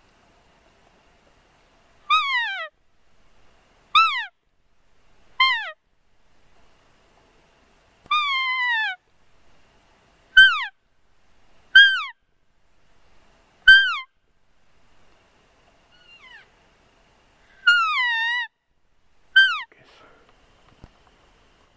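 Elk mews: about ten short, high calls, one to two seconds apart, each sliding down in pitch, two of them held longer, near a second each.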